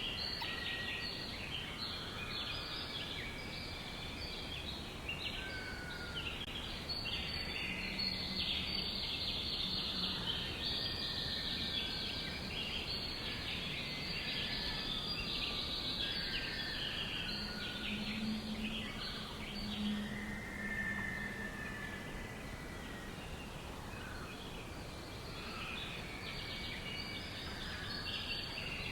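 A dense chorus of many small birds chirping and trilling over one another without a break. It carries a few longer whistled notes, and a low hum comes through twice.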